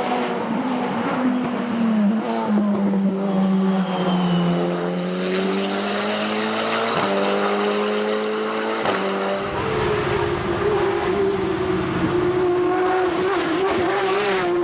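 Race car engine running hard on a hillclimb run, one continuous loud note whose pitch changes abruptly twice, about seven and nine seconds in.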